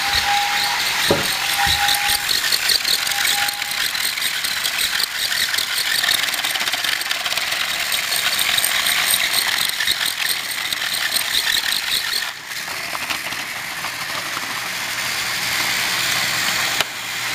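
Battery-powered Thomas & Friends TrackMaster toy trains running: a steady whirring and rattling of small motors and wheels. A held tone sounds three times in the first few seconds.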